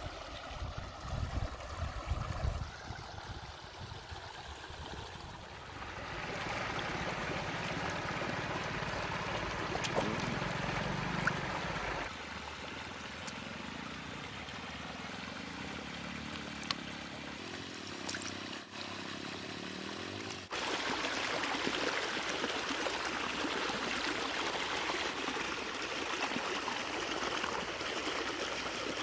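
Flowing river water: a steady rushing trickle. Its loudness and tone change abruptly several times, and there are a few faint clicks.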